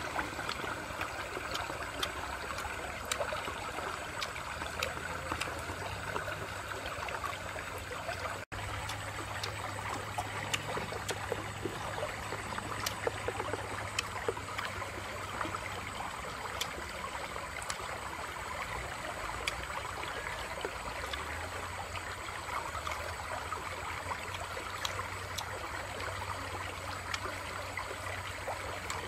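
Shallow stream running over rocks: a steady babble of water with scattered faint clicks. The sound cuts out for an instant about eight seconds in.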